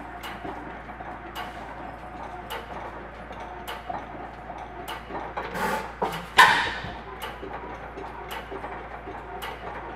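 International Harvester 10 hp Famous single-cylinder stationary engine turning over, with a sharp click about once a second as its flywheels coast. About six seconds in, a swelling rush ends in one loud bang as the engine fires.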